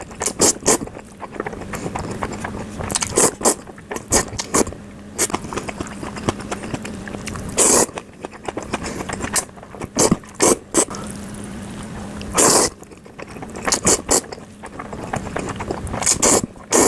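Close-miked eating of bibimmyeon cold mixed noodles: loud slurps of about half a second come every few seconds, with wet chewing clicks between them.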